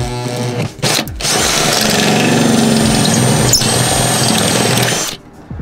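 Cordless drill with a step bit cutting through the sheet-steel wall of a pickup truck bed, enlarging a pilot hole: a couple of short pulses, then a steady run of about four seconds that stops abruptly near the end.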